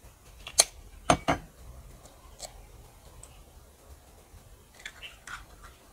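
A few sharp clicks and knocks of kitchen utensils being handled: a loud pair just after a second in, then lighter taps near the end.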